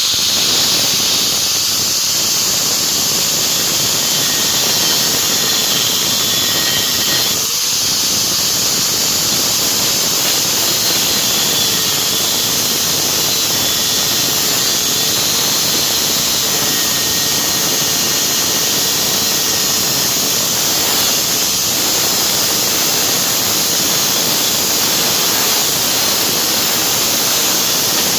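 Grinder cutting into a rusted bolt, slicing a slit through its middle with a steady, high, hissing whine, with a brief dip about seven seconds in.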